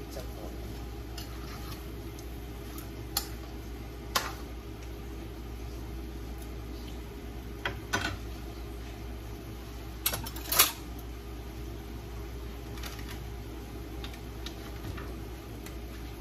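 Chicken pieces frying in a pan over a steady hum, with a few sharp knocks and clatters of a spoon against the pan and the wooden cutting board; the loudest clatter comes about ten and a half seconds in.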